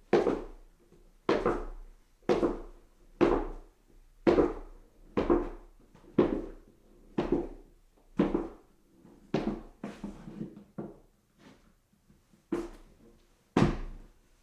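Footsteps climbing a staircase, one heavy thud about every second. Partway through come a few softer, quicker steps and a brief pause before the steady climb resumes.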